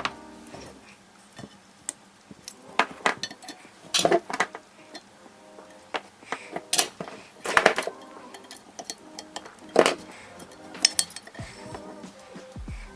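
Sharp, irregular clicks and metallic clinks of small hand tools working on a circuit board, with wire cutters snipping off the extra jumper wire. Soft background music plays underneath.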